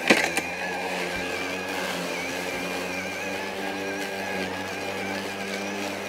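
Kobalt 40V Max brushless battery lawn mower running as it cuts grass: a steady electric motor whine with a few wavering tones. There is a sharp knock just after the start.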